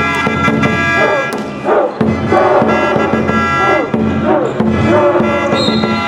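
Music with a crowd of voices: a cheering section singing or chanting along with sustained instrument tones.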